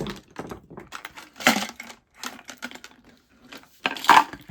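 Pencils and other small plastic school supplies being handled, clicking and rattling against each other, with two louder rustles about a second and a half in and near the end.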